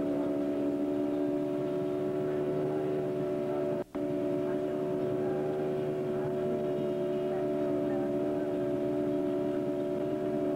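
Motorboat engine running steadily at towing speed, a constant, even drone. It drops out for an instant about four seconds in.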